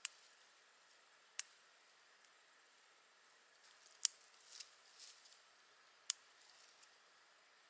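Scissors snipping cranberry sprigs off the plant: four short, sharp snips a second or two apart, with faint rustling of the plants between the third and fourth.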